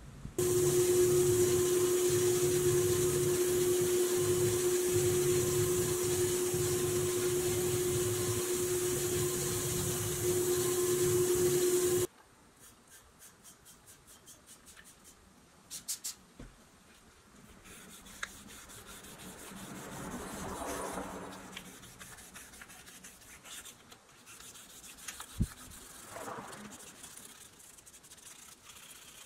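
Spray painting: a loud steady hiss of spray with a steady hum, stopping abruptly about twelve seconds in. After that comes quieter scraping and rubbing of a blade over the toy car's painted metal body.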